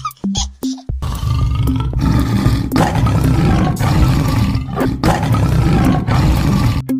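Tiger roaring: a run of deep, rough roars starting about a second in, broken by short pauses.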